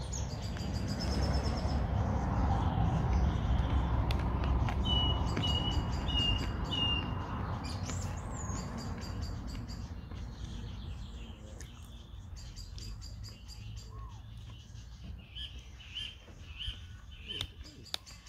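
Songbirds singing and calling, with one bird giving a clear note four times in a row about five seconds in. Underneath is a low rumble, loudest in the first half and fading away after that.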